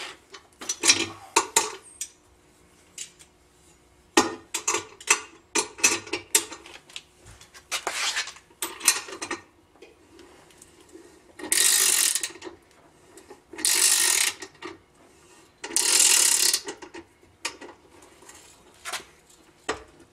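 Ratchet wrench tightening the bolts of a metal motor-mount bracket on a boat's jack plate, clicking in short runs, with three longer runs of about a second each past the middle.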